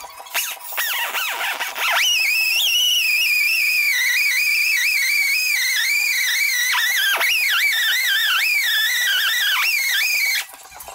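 Pneumatic die grinder with a polishing pad whining at high speed against an aluminum oil pan. The whine glides up over the first couple of seconds, then holds a high pitch that wobbles up and down, and cuts off suddenly near the end.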